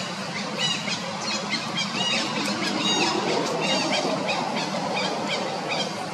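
An animal's short, high, squeaky calls repeated about twice a second, fading after the first few seconds, over a steady background hiss.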